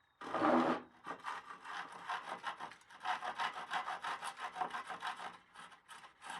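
A dull handsaw cutting through a cedar board with quick back-and-forth rasping strokes, about three or four a second, pausing briefly a few times. The loudest moment is a burst about half a second in.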